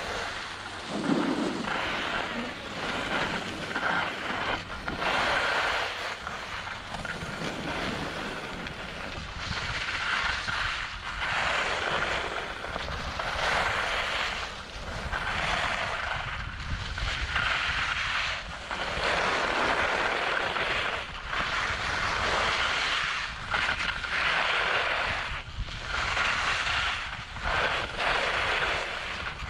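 Skis scraping and swishing over packed snow through a series of turns, a swell of hiss about every two seconds, with wind buffeting the microphone underneath.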